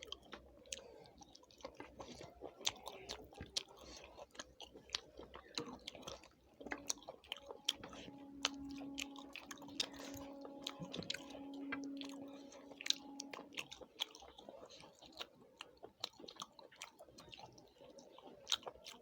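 A person chewing food close to the microphone, with many small, sharp mouth clicks. A steady low hum joins in for several seconds in the middle.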